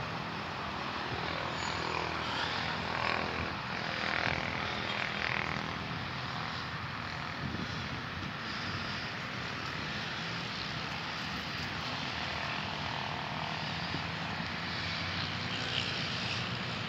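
A steady low engine drone under an even outdoor hiss, holding level without a break.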